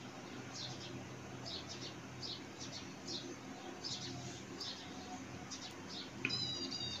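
Faint bird chirps repeating about one to two a second, with a brief, more tonal call near the end, over a low steady hum.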